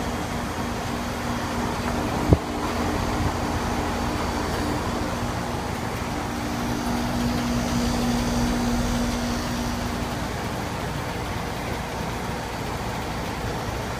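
Ruud air-conditioning condenser units running: a steady compressor hum under the rush of the condenser fan, with one sharp click a little over two seconds in.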